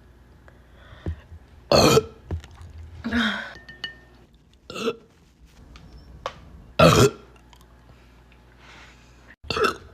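A woman burping loudly, about five short burps a couple of seconds apart, the loudest about two and seven seconds in.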